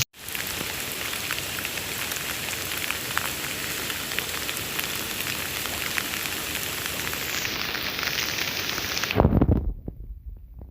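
Steady rain hissing with scattered sharp patters of drops. About nine seconds in it stops abruptly and gives way to a few low thumps.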